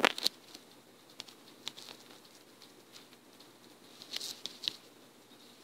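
Light, irregular taps of fingers on a touchscreen while typing on an on-screen keyboard. One sharp tap comes right at the start, then sparse faint ticks, and a short cluster of taps about four seconds in.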